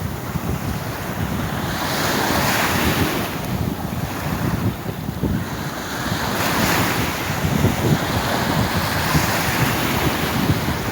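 Sea waves washing ashore, the surf swelling and falling back every few seconds, with wind rumbling on the microphone.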